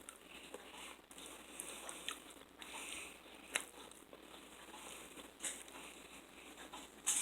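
A person chewing a mouthful of a chicken, rice and black bean bowl, with faint scattered clicks and small mouth sounds.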